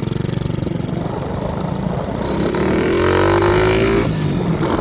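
Motorcycle with a loud exhaust pulling away. The engine rises in pitch for about a second and a half, then drops at a gear change near the end.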